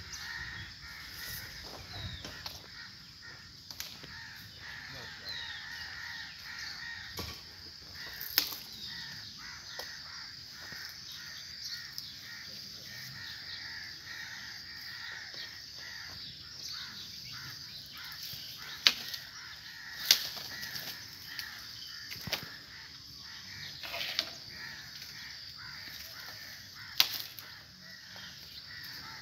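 Birds calling from the trees in a steady outdoor chorus, broken by several short sharp clicks.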